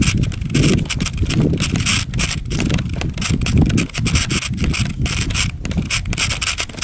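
Continuous rustling, crackling and low buffeting from a microphone being carried along a rough dirt trail, with many quick clicks and crunches.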